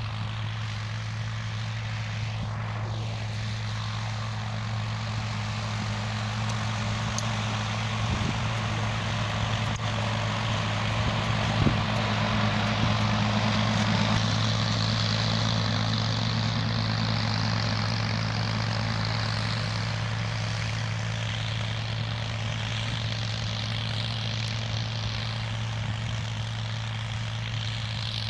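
Tractor engine running steadily with a deep, even hum.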